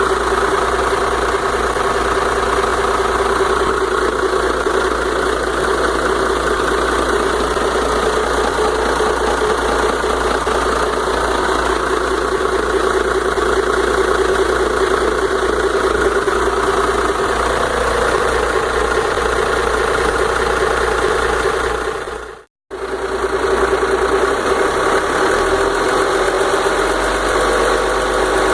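Volvo Penta turbo diesel boat engine idling steadily, with a brief drop to silence a little over 22 seconds in before it carries on.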